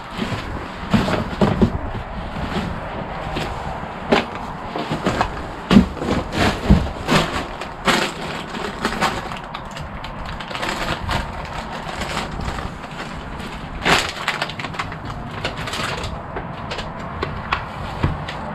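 Footsteps picking through debris and broken boards, with irregular cracks, snaps and clatters of wood and rubble underfoot. The loudest snaps come about six and fourteen seconds in.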